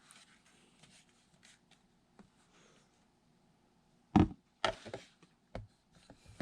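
Plastic blaster parts being handled, with faint light clicks and rustles, then two sharp knocks about four seconds in and another shortly before the end.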